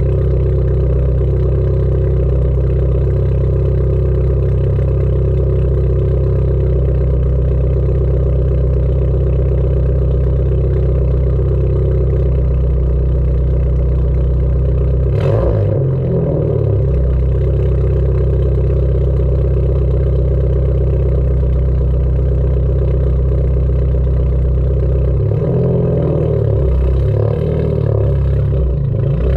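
Dodge Neon's four-cylinder engine idling, heard at the tailpipe as a steady, dull exhaust note. The note breaks up briefly about halfway through and again for a few seconds near the end.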